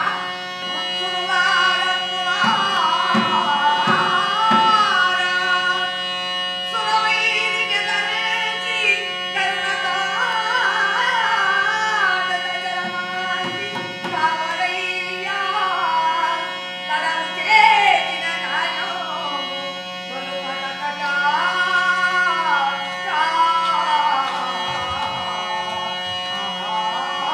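A singer's wavering melodic line over a steady held drone, with occasional hand-drum beats, in Carnatic style: the sung accompaniment of a shadow-puppet play.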